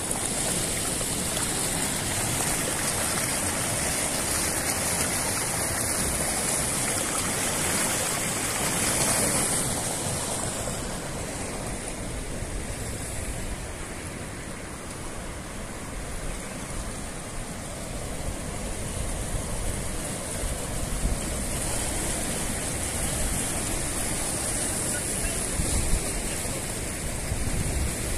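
Fast-flowing floodwater of a river in spate: a steady rushing wash of water.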